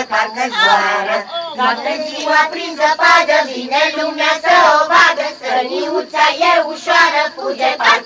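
A group of voices singing a Christmas carol together: the actors voicing the puppet carolers.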